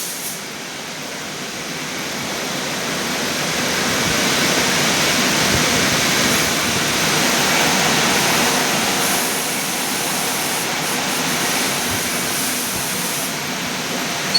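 Automatic car wash machine running: a steady rushing hiss of spraying water and machinery that builds over the first few seconds and then holds.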